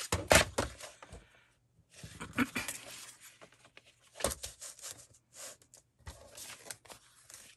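Paper being handled and shuffled on a craft table: rustling swishes broken by a few sharp taps and clicks, near the start and again about four seconds in.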